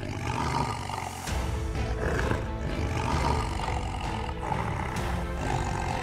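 Lions roaring in a fight over background music.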